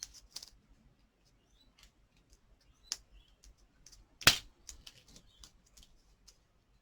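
Card stock and small foam adhesive dimensionals being handled by hand: scattered small clicks and light rustles, with a sharp tap about three seconds in and a louder one just after four seconds.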